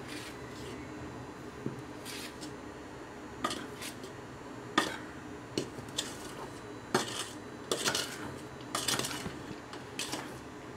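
Irregular clinks and short scrapes of a metal bowl as a hand mixes powdered sugar into roasted gram flour, knocking and rubbing against its sides, with a denser run of scraping near the end.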